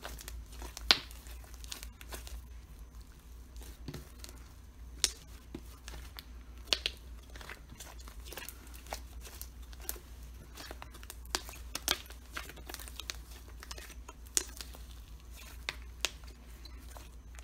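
Pink butter slime made from glue, shaving cream and Model Magic being kneaded and squeezed by hand, giving irregular sticky pops and crackles, the loudest about a second in.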